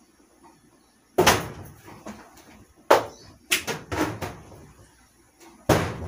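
Sharp knocks and clatters from a kitchen wall cupboard as things are taken out of it and its door is shut. There are about six hits, the loudest about a second in and the last near the end.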